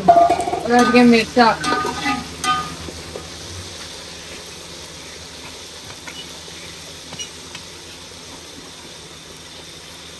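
Sliced onions frying in hot ghee in a cooking pot, a steady sizzle as they brown for pulao. A voice is heard over it in the first two or three seconds.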